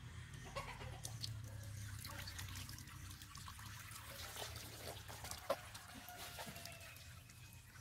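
Water poured from a plastic dipper over a puppy, splashing and dripping off its wet fur, with hands rubbing and scrubbing the soaked coat; faint, with many small scattered splashes and drips.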